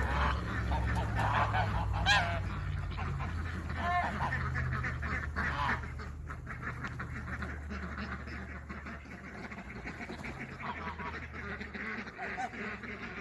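Domestic poultry calling in repeated short honking calls, thickest in the first half and sparser later, over a steady low hum.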